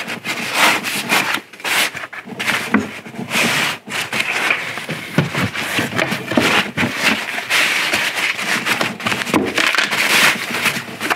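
Plastic sleeve and foam packing sheets rustling and scraping against a box as a wood-framed print is handled and packed away, in irregular rubs and scrapes throughout.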